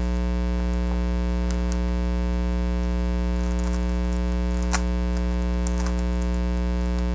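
Steady mains hum with a stack of buzzing harmonics, and a few faint clicks of a plastic speed cube's layers being turned.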